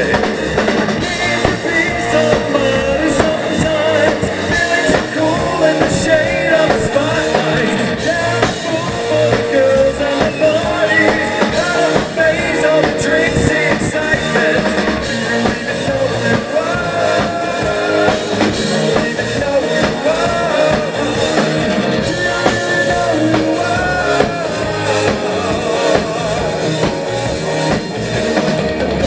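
Rock band playing live and loud: a lead singer over electric guitars and drums, heard from among the audience in a small club.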